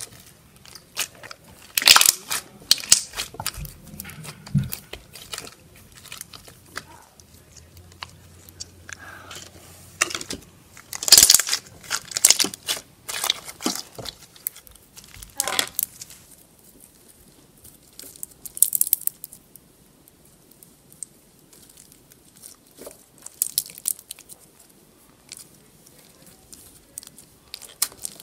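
Slime mixed with small foam beads being poked, pressed and stretched by hand, giving irregular crackles, pops and crunches in clusters, the loudest about two seconds in and around the middle.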